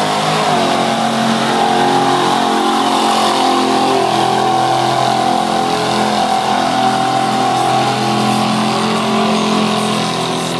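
Truck engine held wide open at high revs under heavy load in a mud bog, a loud, steady pitch that wavers slightly as the load shifts.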